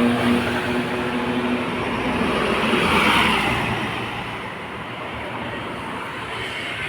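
Tour bus driving past. Its engine and road noise swell to a peak about three seconds in, then fade.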